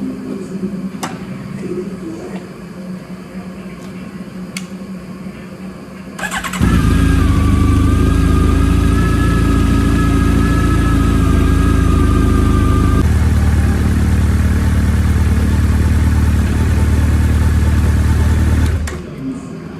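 Honda CB1300 Super Four motorcycle's inline-four engine cranked and started about six seconds in, running steadily for about twelve seconds and then switched off. A higher steady whine over the engine stops about halfway through its run.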